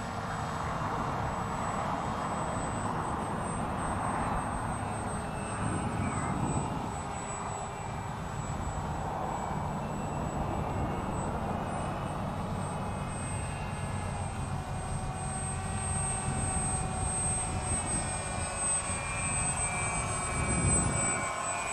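Electric RC foam plane's small brushless outrunner motor and propeller buzzing steadily overhead, the pitch slowly rising and falling as it flies around and the throttle changes.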